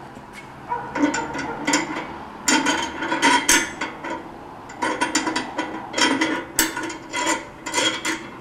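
Metal hardware of a microwave dish antenna's mount clinking and rattling as it is handled and fitted, in several bursts of rapid clicks with a ringing metal tone.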